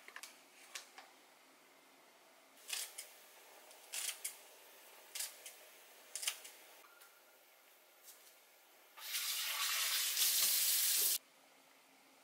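Kitchen scissors snipping through aged kimchi, a snip or two about once a second, then a tap running hard for about two seconds near the end as the kimchi is rinsed.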